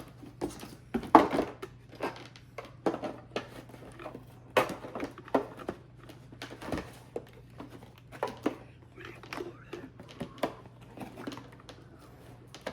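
Plastic toy packaging and parts being handled: crinkling and rustling with frequent sharp clicks and knocks, irregularly spaced.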